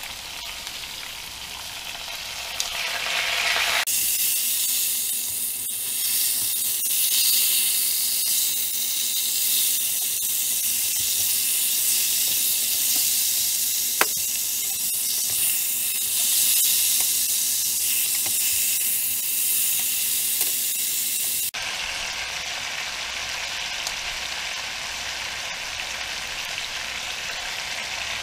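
Pork roast searing in hot oil in a pot, sizzling steadily. The sizzle turns much louder about four seconds in as the pieces are turned with tongs, with one sharp tap in the middle. About three quarters through it drops suddenly back to a quieter sizzle.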